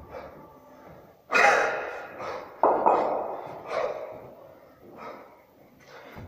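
A man breathing hard and loud during a set of long-cycle clean and jerk with two 34 kg kettlebells: a series of sharp, forceful breaths, the loudest about a second in and near three seconds.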